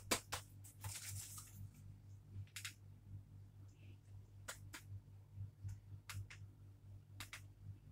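Faint scattered clicks and taps at irregular times, with a brief rustle about a second in, over a steady low hum.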